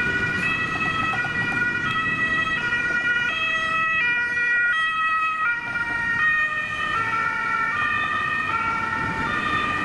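German two-tone emergency-vehicle siren (Martinshorn) on a passing ambulance, switching between a high and a low tone about every 0.7 seconds, over road-traffic rumble.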